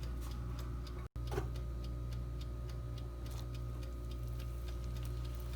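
Salmon croquettes frying in oil that is not yet really hot: only sparse, faint pops and crackles over a steady low hum.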